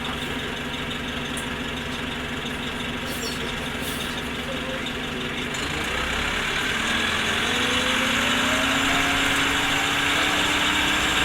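Orion V transit bus's diesel engine idling steadily, then about six seconds in it speeds up and gets louder, the pitch rising as the bus pulls away.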